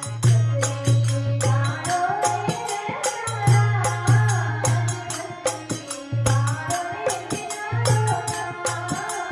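Rajasthani folk devotional bhajan: a wavering sung melody over a steady hand-drum beat and fast, regular high-pitched percussion strikes.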